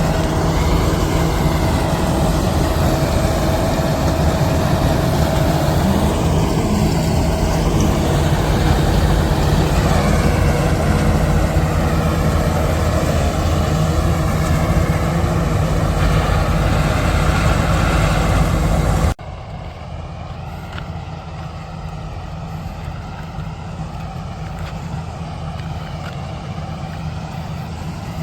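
Kartar combine harvester running steadily, engine and machinery going at working speed. About two thirds of the way in, the sound drops suddenly to a quieter, steady hum of the same machine.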